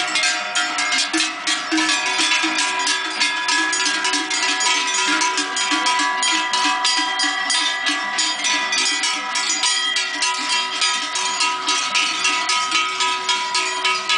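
Many large cowbells worn by a herd of walking cattle, clanking irregularly and ringing together in several overlapping tones.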